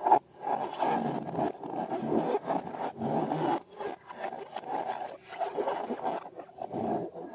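Rubber balloons and slime being handled, making uneven rubbing and scraping sounds that swell and fade.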